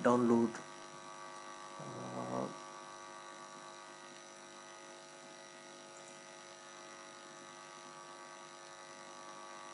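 Steady electrical mains hum with a buzzy edge, picked up on the recording.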